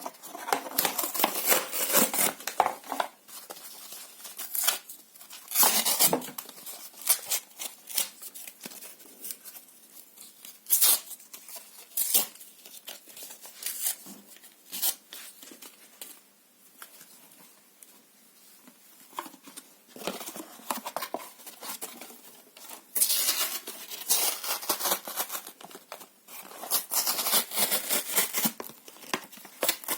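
Paper and cardboard being torn by hand, in separate bursts of ripping and crackling with quieter rustling between; the longest stretches of tearing come near the end.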